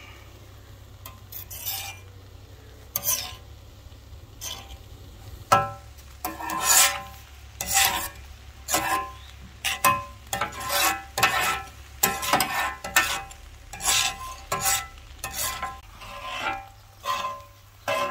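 Metal spatula scraping and tossing shredded red cabbage across a large flat steel griddle as it fries. The strokes are sparse at first, then come about one to two a second from about five seconds in, over a faint sizzle and a low steady hum.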